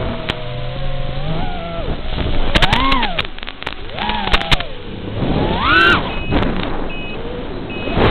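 Furibee X215 Pro racing quadcopter's brushless motors whining, the pitch rising and falling in about three surges as the throttle is pushed and released. There are sharp crackles a few seconds in and three short high beeps near the end.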